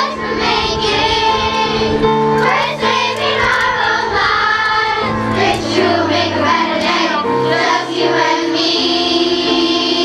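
Large children's choir singing together over keyboard accompaniment, with long held chords under the voices.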